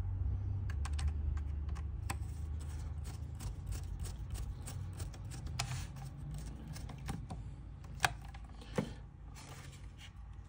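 Small screw being driven by hand with a screwdriver into a plastic router case: a run of light, irregular clicks and ticks from the driver tip and the plastic, with two sharper clicks late on. A low hum sits under the first few seconds.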